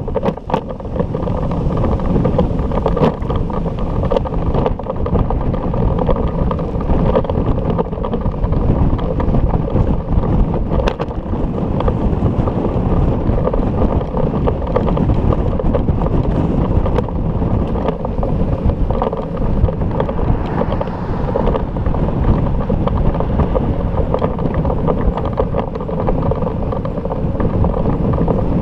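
Wind buffeting an action camera's microphone while the bicycle it rides on is moving: a loud, steady rumble with little above the low and middle range.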